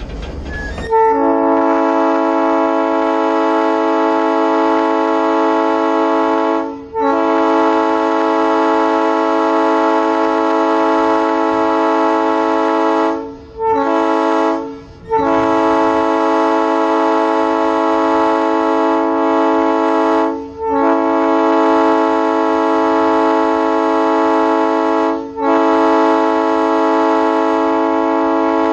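Locomotive air horn sounding a multi-note chord in the grade-crossing pattern: two long blasts, one short, then a long one held with a couple of brief breaks as the train reaches the crossing.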